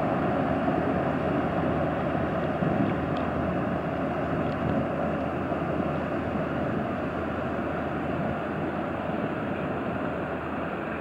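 Steady drone of passing inland cargo ships' diesel engines mixed with the rush of bow wave and propeller wash, slowly fading.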